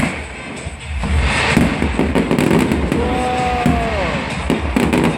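Aerial fireworks going off in quick succession: a dense run of sharp cracks over deep, rumbling booms.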